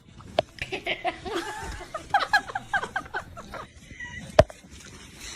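A person laughing in short, quick bursts, with a sharp knock about four seconds in.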